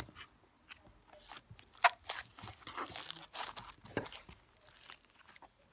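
Teal fishbowl slime, slime full of small plastic fishbowl beads, squeezed and kneaded by hand, giving irregular crunching, crackling and squishing. The loudest is one sharp pop a little under two seconds in.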